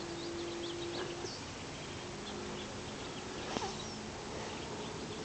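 Faint outdoor background: a few short, high bird chirps scattered over a low, steady hum.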